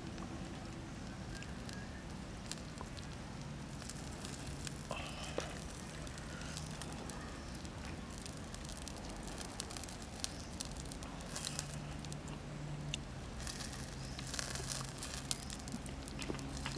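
Wood-fire embers crackling, with scattered sharp pops that come more often near the end.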